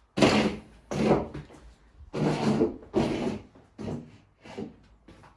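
Cordless drill driving a screw into wood in about six short trigger bursts, the bit grinding through the timber.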